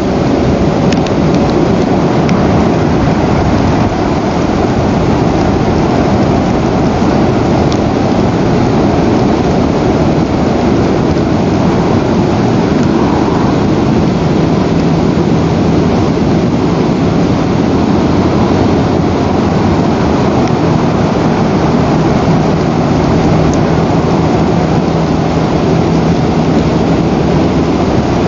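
Loud, steady rushing of wind buffeting the nest camera's microphone. A faint low drone comes in about halfway through.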